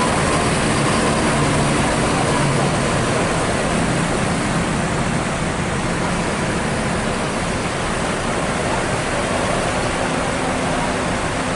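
Steady road-traffic noise: an even rush with a low engine hum underneath, easing off slightly toward the end.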